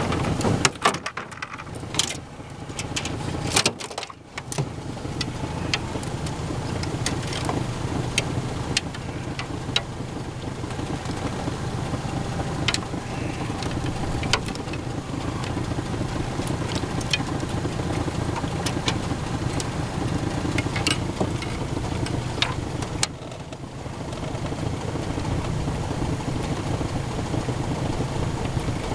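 A motor runs steadily at idle, with many short clicks and rattles from a catfish landing net and fishing tackle being handled in a jon boat. The hum dips briefly three times: about a second in, about four seconds in, and near the end.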